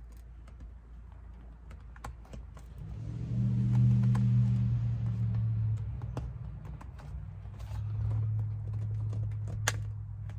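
Small scattered clicks and taps of a wire and plastic console parts being handled, with one sharper click near the end. A low steady hum comes in about three seconds in, is the loudest sound, fades and then returns.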